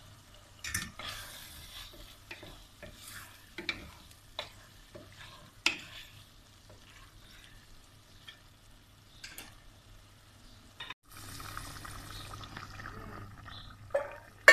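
Wooden spoon stirring potato chunks through sizzling mince in a stainless steel pot, with scattered scrapes and knocks against the pot. After a break a bit past ten seconds the pot sizzles steadily, and a metal clang rings out near the end.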